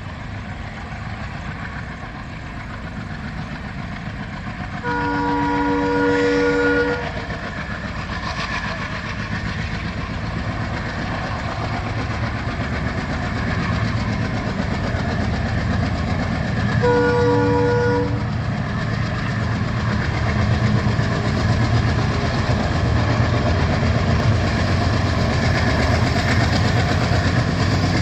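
ALCo WDG-3A diesel locomotive approaching under power, its engine chugging with a deep beat that grows louder as it nears. Its horn sounds for about two seconds about five seconds in, and again more briefly about twelve seconds later.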